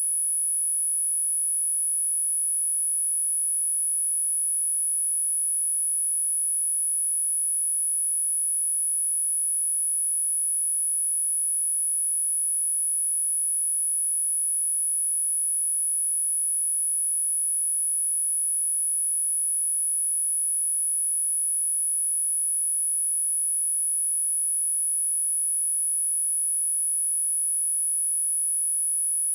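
A steady, unbroken 11046 Hz sine-wave test tone: a single high-pitched pure tone at constant loudness, used for speaker testing and for shaking water and dust out of a speaker.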